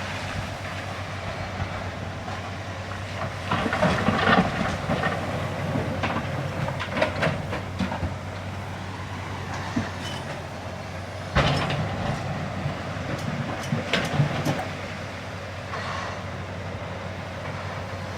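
Heavy earthmoving machinery at work: a diesel engine running steadily under repeated metallic clanks and knocks, with one sharp bang about eleven seconds in.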